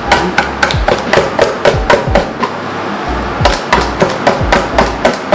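Butter being creamed with sugar by hand in a mixing bowl: the utensil knocks against the bowl several times a second, with a pause of about a second midway. The mixture is being beaten until light and fluffy.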